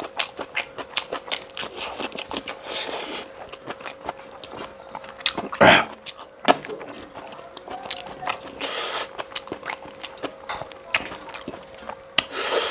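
Close-up chewing and biting: a person eating pork with bamboo shoot curry, with many quick wet mouth clicks and a few short hissy slurps or breaths, plus one louder sharp sound near the middle. A faint steady hum runs underneath.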